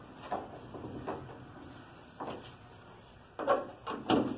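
Scattered knocks and clunks of hand tools on a car's hood hinge bolts as they are tightened, with two louder clunks near the end.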